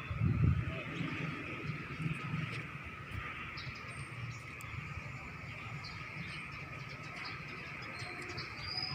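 Insects trilling in a steady, continuous chorus, with a few short bird chirps and a whistled note near the end. A low rumble in the first second.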